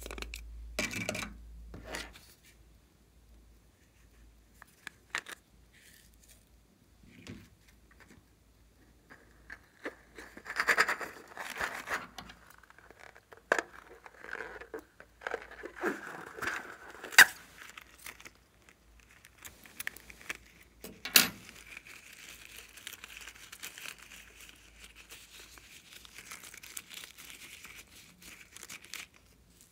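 Close handling sounds of plastic and rubber: a plastic mould clicking as it is worked free, then crackly rubbing and sharp scissor snips as a rubber balloon is cut open, with a couple of loud snips. Near the end comes a steady light rustle of plastic sequin confetti pouring out.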